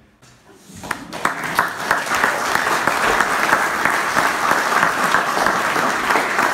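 Audience applauding: the clapping starts about a second in and quickly builds to a steady, loud round.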